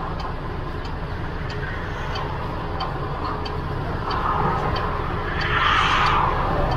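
Mercedes-Benz truck's diesel engine idling, heard from inside the cab with the door open, with a faint regular ticking about twice a second over it. A rushing swell of noise rises about four seconds in and fades near the end.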